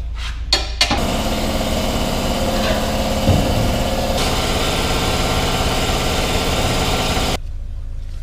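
A motor-driven machine running steadily for about six seconds, starting suddenly and cutting off abruptly.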